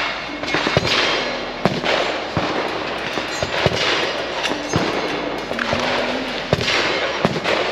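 Gunfire on an outdoor shooting range: a dozen or so sharp gunshots at irregular spacing, several a second at times, from more than one shooter.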